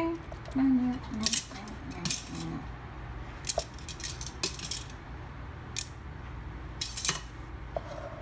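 Light clicks and scrapes of hands working shredded hash browns into a metal muffin pan, about half a dozen spread irregularly. A few short hummed notes come near the start.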